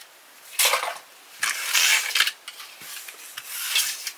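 Rubbing and scraping from objects being handled, in three bursts, the longest and loudest about a second and a half in.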